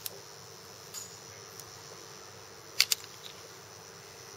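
Small scissors snipping stray synthetic brush fibers at the head of a fly: a few sharp snips, the loudest two in quick succession about three seconds in.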